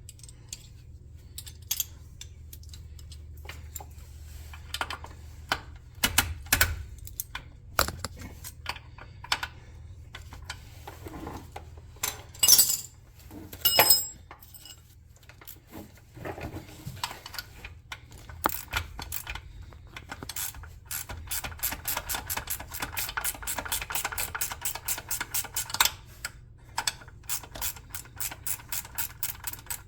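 Hand ratchet wrench clicking in runs as bolts are turned, with scattered metallic clinks and knocks of tools and parts. A long, even run of quick ratchet clicks, several a second, comes about two-thirds of the way through.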